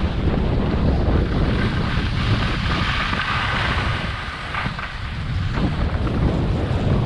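Wind buffeting a skier's body-worn camera microphone during a downhill run, with the steady hiss of skis sliding over packed snow; the noise dips briefly about four and a half seconds in.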